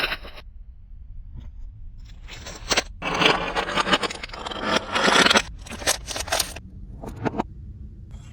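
Scraping and crunching from hands working a slime-making toy kit. The noise comes in bursts, the longest and loudest lasting about two seconds, with a steady low hum underneath.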